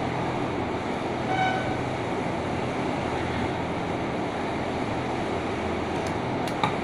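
Steady background noise, with a brief faint tone about a second and a half in and a few light clicks near the end.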